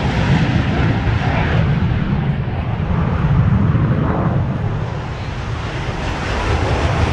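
Aircraft engine noise during a takeoff roll: a loud, steady rumble with a hiss above it that thins out around the middle and builds again near the end.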